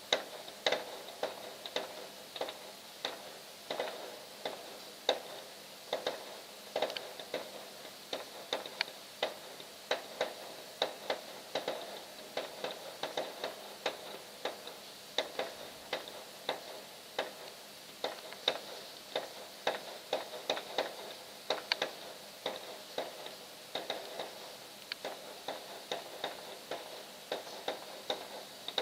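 A steady run of sharp, irregular clicks or pops, two or three a second, with hardly any low end.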